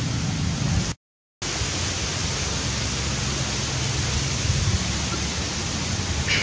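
A steady, even rushing noise with a low hum under it, cut by a brief total silence about a second in.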